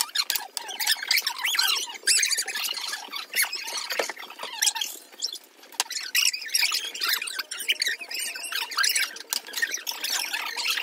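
Sped-up chatter of several people talking over each other, pitched up into squeaky, chipmunk-like babble with no bass.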